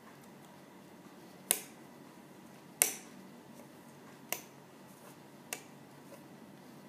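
Four sharp plastic clicks about a second apart, the first two loudest: a plastic marker pen knocking about as a cat bites and paws at it.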